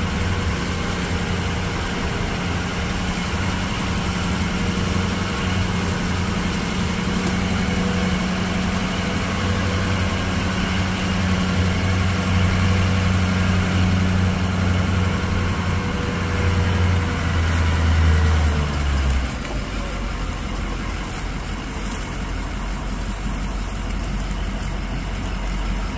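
Ford dually pickup's engine running steadily at low speed as the truck climbs a dirt trail, with a haze of road noise underneath. About eighteen seconds in the engine note drops lower and a little quieter as it eases off.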